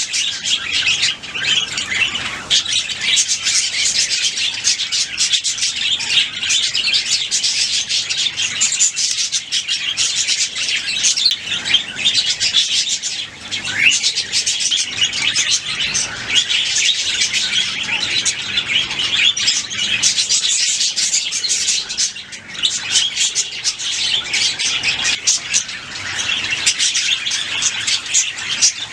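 A flock of budgerigars chirping and warbling, a dense, continuous chatter of many overlapping fast calls.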